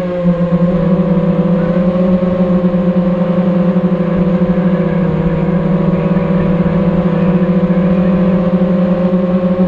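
Multirotor drone's motors and propellers humming steadily in flight, the pitch dropping slightly at the start and wavering a little after.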